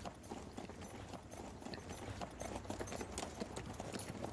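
Hooves of two horses walking, a quiet, uneven clip-clop of hoof falls.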